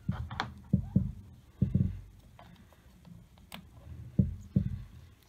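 Hands handling an ignition coil and small tools on a Ford 5.0L V8's plastic valve cover: a string of dull low knocks and light plastic clicks, with a quieter stretch in the middle and one sharper click about three and a half seconds in.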